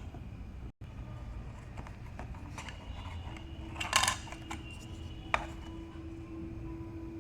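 Small hard objects being handled: scattered light clicks and one brief rattling clatter about four seconds in, with a sharp click just after, over a low steady hum.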